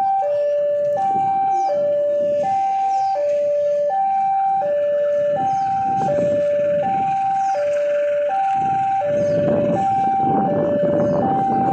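Electronic two-tone warning alarm sounding steadily, alternating between a higher and a lower note, each held for under a second, with a low rumble underneath that grows louder near the end.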